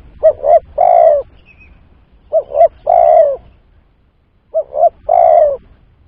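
Spotted dove cooing: three phrases about two seconds apart, each two short coos followed by a longer, slightly falling coo.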